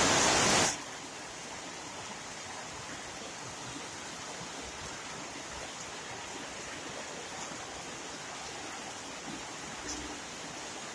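Heavy rain falling, a steady even hiss, opening with a brief louder rush of noise.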